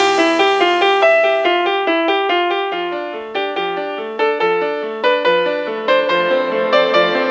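Music: a drumless breakdown in an electronic dance track, with fast repeated piano-like keyboard notes several times a second and no bass.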